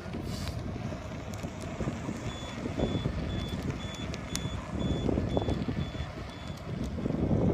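High-pitched electronic warning beeps, evenly spaced about twice a second, starting about two seconds in and stopping a couple of seconds before the end, over a steady low rumbling noise.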